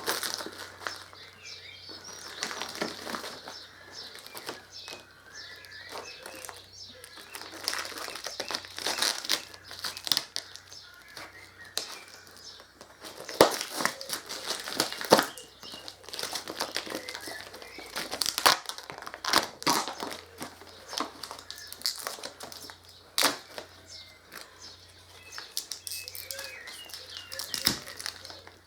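Plastic packaging crinkling and rustling as kit parts are handled and unwrapped, with scattered sharp clicks and knocks. Birds chirp in the background.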